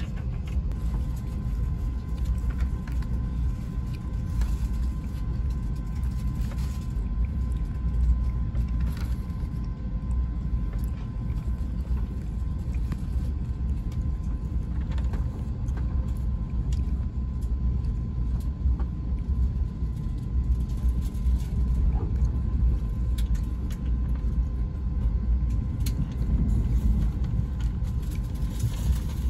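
Amtrak Acela train heard from inside the passenger car while running: a steady low rumble of wheels on track, with scattered light clicks and a faint steady tone above it.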